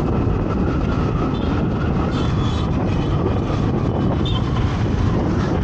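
Wind rushing over the microphone and road and engine rumble from a two-wheeler ride through town traffic, a loud steady noise heavy in the low end.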